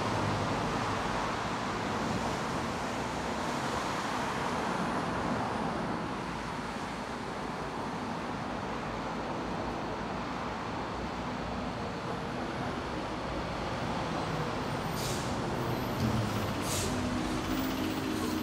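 Steady city road-traffic noise, the even rumble and hiss of passing vehicles. Near the end come a couple of short, sharp high hisses.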